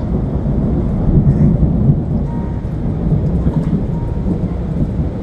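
Thunder rumbling low and long through a thunderstorm, swelling loudest about a second in, over a light hiss of rain.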